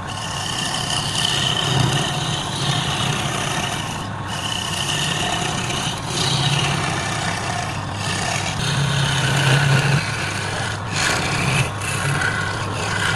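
Wood spinning on a wood lathe and worked with a hand-held tool, a continuous rasping, scraping sound over the steady hum of the lathe motor.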